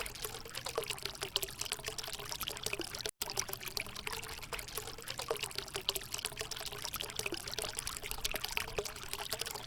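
River water bubbling and trickling, a steady run of small splashes and gurgles. It cuts out for an instant about three seconds in.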